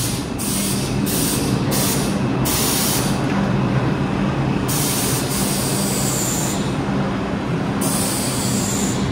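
New York City subway train running, a steady rail noise with a low hum underneath and a high hiss that comes and goes several times, in longer stretches in the second half.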